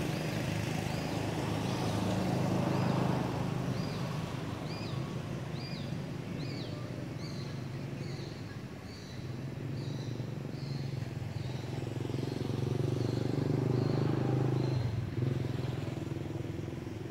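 A motor vehicle's engine runs steadily, growing louder about two seconds in and again near the end, as traffic passes. Over it a bird repeats a short, high, down-slurred call about twice a second, stopping about two-thirds of the way through.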